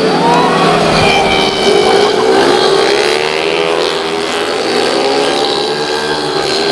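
Several 115 cc automatic racing scooters accelerating past, their engines revving, the overlapping engine notes sweeping up in pitch as they pull through the revs.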